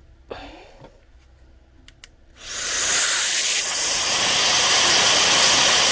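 A small high-speed electric fan-driven tool, an air blower or duster type, starts about two seconds in and blows a loud, steady rush of air for about three and a half seconds. Its whine rises as it spins up and falls as it shuts off at the end.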